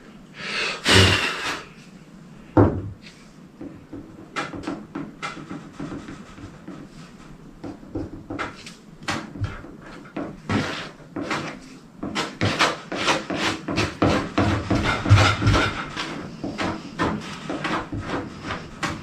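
Plastic spreader scraping and smoothing epoxy body filler, short rubbing strokes a few times a second with a knock early on.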